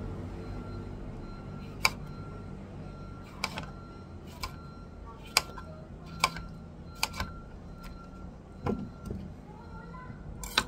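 Ceramic knife cutting through a cucumber, the blade knocking on the cutting board about ten times at an uneven pace, over a steady background hum.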